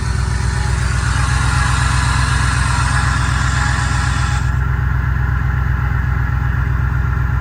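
Ford 6.2-litre V8 idling steadily, with a whining noise from the front belt drive: the idler pulleys have bad bearings and are vibrating back and forth.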